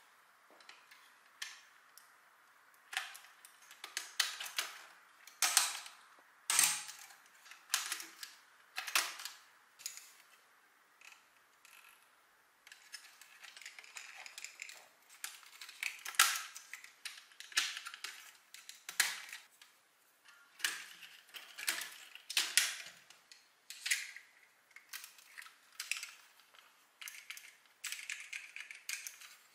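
LEGO Technic plastic beams and pins being pressed together by hand onto an EV3 brick: an irregular run of sharp plastic clicks and snaps as pins seat, with softer handling noise between.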